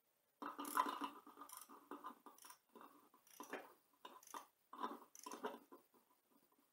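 Ratchet wrench worked back and forth in short strokes, giving quiet, irregular bursts of clicking about every half second.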